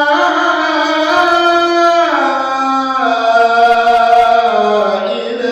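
A male voice singing one long melismatic vowel in an Arabic Islamic devotional chant (inshad). It moves between a few long held notes.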